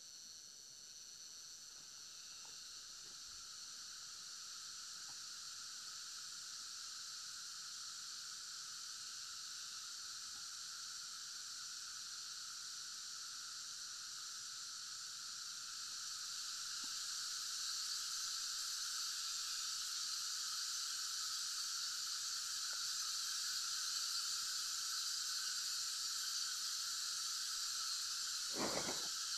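A steady, high-pitched insect chorus, cicadas by its sound, holding several pitches at once and growing gradually louder. A single short knock comes near the end.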